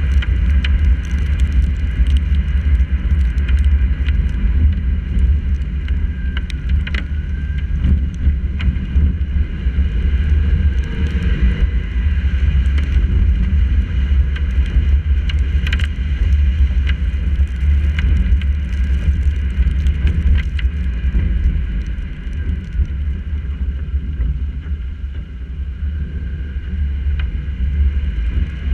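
Car driving in the rain as heard from a camera mounted on the bonnet: a heavy, steady low rumble of wind buffeting and road noise, with scattered ticks of raindrops hitting the camera. It eases off a little about three-quarters of the way through.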